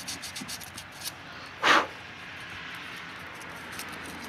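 Sandpaper rubbed by hand over epoxy filler on an aluminium two-stroke engine case, a run of quick, short scratching strokes as the JB Weld filler is smoothed. One louder, brief noise comes about a second and a half in.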